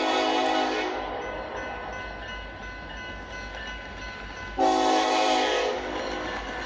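Diesel locomotive air horn on an approaching coal train, sounding for a grade crossing. A multi-note horn blast ends about a second in, and a second blast starts about four and a half seconds in and lasts about a second, with the train's low rumble between them.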